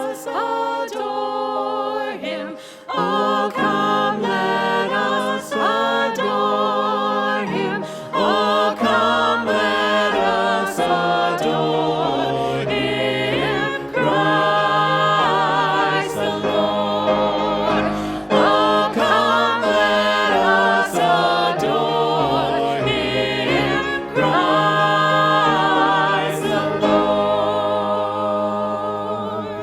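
Choir singing, several voices with vibrato over steady low notes, stopping right at the end.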